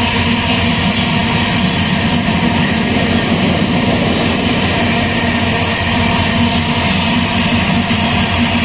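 Diesel-electric locomotive running in the middle of a loaded iron-ore train, its steady engine drone mixed with the continuous rumble of ore wagons rolling over the rails.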